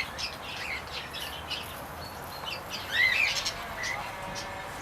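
Several aviary birds chirping and calling in short, overlapping high-pitched notes, with one louder call about three seconds in.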